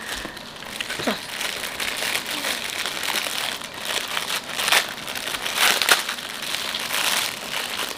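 Packaging crinkling and crackling unevenly as it is handled, with a few louder crackles about five and six seconds in.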